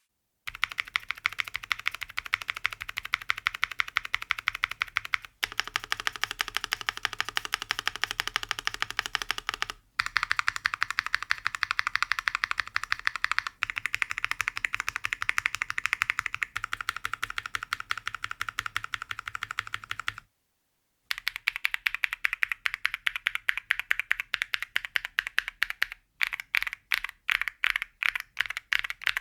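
Mechanical keyboard (Rexus Daxa PCB in a gasket-mount acrylic case, TECSEE Diamond switches) being typed on fast, a dense stream of keystroke clacks broken by a few short pauses. Near the end the typing slows to separate, evenly spaced key presses, about three a second.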